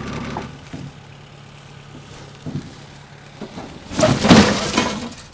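Tools and gear being moved around in the cargo box of a moving truck: a few light knocks, then a loud burst of clattering and banging about four seconds in.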